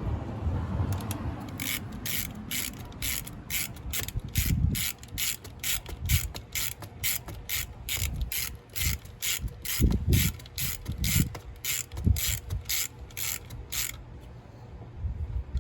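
Hand ratchet wrench being worked, its pawl clicking at an even pace of about two to three clicks a second for some twelve seconds, with a few dull knocks underneath.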